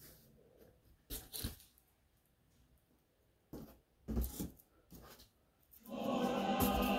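Music fades out, then a few short knocks and handling noises break the near quiet. About six seconds in, music with a choir starts up and carries on to the end.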